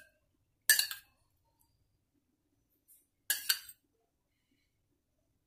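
A metal spoon clinking against a bowl and pot while saffron milk is spooned out: one sharp clink under a second in, then two quick clinks a little past three seconds.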